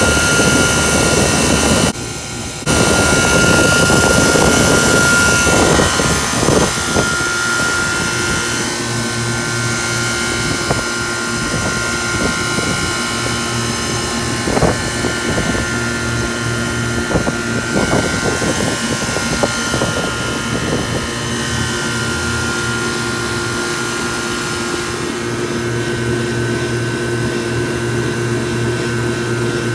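Rooftop HVAC unit running: a steady machine drone with several held tones, under a loud airy rush over the first several seconds. Scattered sharp clicks and knocks sound through the middle of the stretch.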